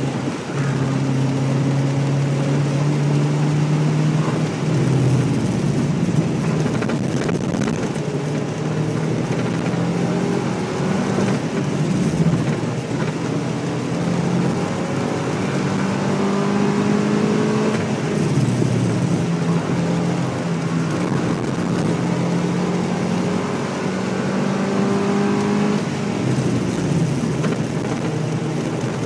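Porsche 944 S2's 3.0-litre four-cylinder engine pulling hard, heard from inside the cabin over steady road and wind noise. Its note climbs under acceleration and drops back about four times.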